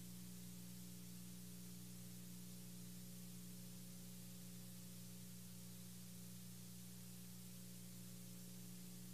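Faint steady low hum and hiss with no music: the recording's background noise in the gap between two songs.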